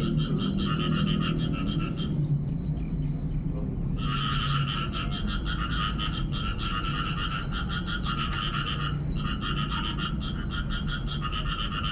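Rapid pulsing trill call that repeats in long bouts, breaking off for about two seconds near the start and again briefly later, over a steady low hum.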